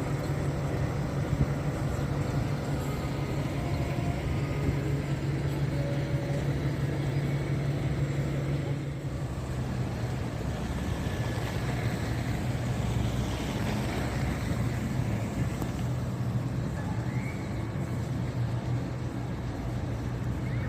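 Steady city street traffic noise, with a constant low engine hum from nearby vehicles.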